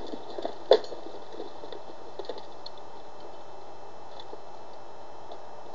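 A single sharp knock less than a second in, over a steady low hiss with a few faint scattered ticks.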